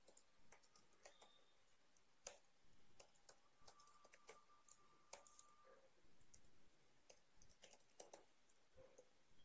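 Faint computer keyboard typing: scattered single key clicks at an uneven pace, against near silence.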